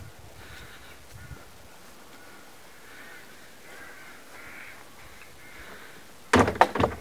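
Crows cawing, several short calls spread through the first few seconds. About six seconds in, a sudden burst of loud crackling and knocks takes over.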